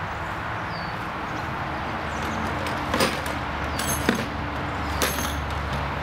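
Metal garden hand tools with wooden handles clinking against each other as they are pulled out of a bucket: three or four sharp metallic knocks with a brief ring, in the second half, over a steady outdoor background hiss.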